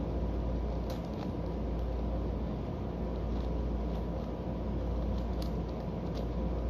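Steady low room hum, with a few faint clicks of Master Kilominx layers being turned.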